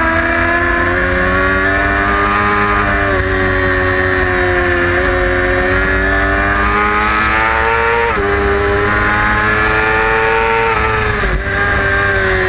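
Race motorcycle engine running hard at high revs, heard from a camera on the bike: the pitch climbs slowly and breaks sharply three times, over low wind rumble.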